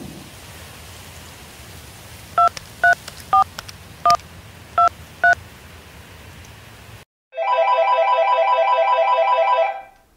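Six touch-tone keypad beeps as a phone number is dialed, each a short two-note tone. About two seconds later a telephone's electronic ringer starts a rapid trilling ring that lasts a little over two seconds.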